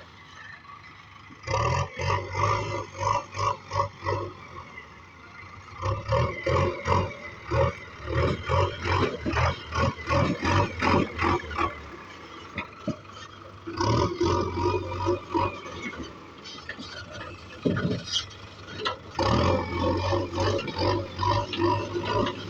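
Backhoe loader's diesel engine running and revving in surges under load, with a pulsing beat of about four to five a second in several stretches.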